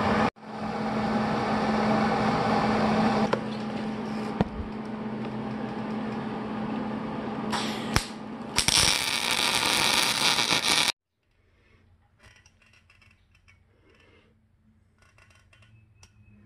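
MIG (wire-feed) welder arc welding the anvil's cracked steel face: a loud, even sizzle over a steady hum, growing harsher about eight and a half seconds in. It stops abruptly about eleven seconds in, leaving only faint scuffs and clicks.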